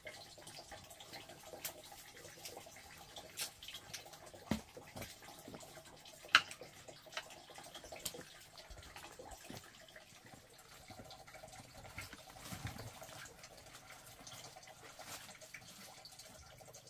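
Water trickling and dripping, with scattered small clicks and knocks; one sharp knock about six seconds in.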